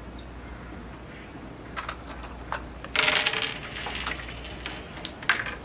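Wooden crokinole discs clicking on the board: several sharp clicks, with a louder half-second burst of scraping noise about three seconds in.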